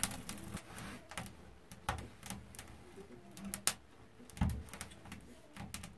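Freshly lit kindling crackling in a small, old, rusty wood-burning stove, with irregular sharp snaps and pops.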